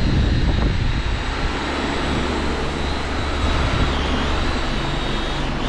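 A steady mechanical drone: a low hum under a thin high whine, with the whine dipping briefly about two-thirds of the way through.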